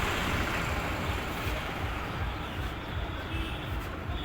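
Steady background road traffic noise, a continuous low rumble with hiss, without any distinct knock or click standing out.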